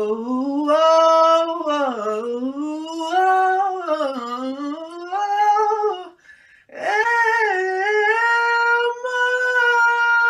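A solo voice singing unaccompanied, sliding up and down through drawn-out notes, breaking for a breath about six seconds in, then holding one long steady note.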